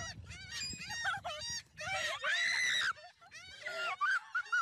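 A flock of gulls calling, many shrill, wavering calls overlapping, with one longer, louder call about two seconds in.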